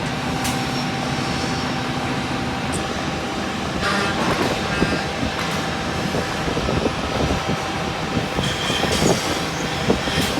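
CNC wood drilling and milling machine running: a steady machine hum with a faint whine, and from about four seconds in, irregular clicks and knocks.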